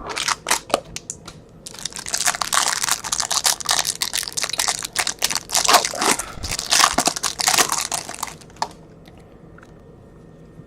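A trading-card pack wrapper being crinkled and torn open: a few sharp crackles, then about seven seconds of dense crinkling that stops near the end.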